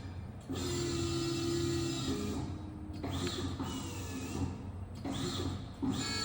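Stierli-Bieger CNC horizontal press brake running a bend cycle: a steady machine hum with whining tones that shift in pitch as the ram and back gauge move, including a held mid tone early on and rising and falling high whines around three and five seconds in.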